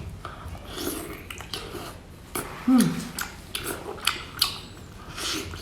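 Close-up eating sounds of a person eating seafood: wet chewing, smacking and crackling bites. About three seconds in comes a short, loud voiced murmur that falls in pitch.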